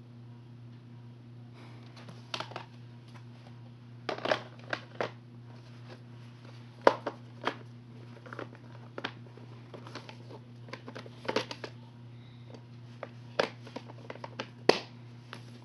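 Handling noise: irregular clicks, taps and light rustles of objects being moved by hand, the sharpest taps about 7 seconds in and near the end, over a steady low hum.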